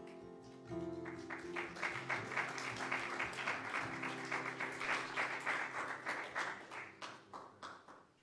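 Keyboard and acoustic guitar holding a soft closing chord, then audience applause that starts about a second in and dies away near the end.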